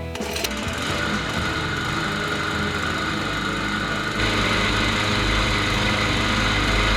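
Briggs & Stratton push-mower engine running steadily, growing louder about four seconds in. It vibrates like crazy, which the owner puts down to a probably bent crankshaft.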